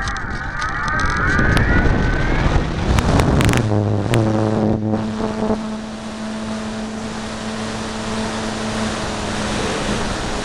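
Turnigy 50-55 brushless electric motor of a large RC P-51 Mustang spinning its 15x10 propeller up for takeoff, heard from a camera on the wing: a rising whine over the first two seconds, then from about four seconds a steady hum at full run with rushing wind and prop wash.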